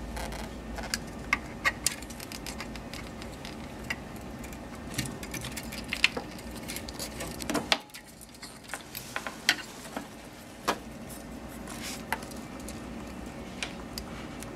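Scattered small clicks and taps of a metal pick and fingers working the ink hoses off an Anajet mp5i print head, over a low steady background hum.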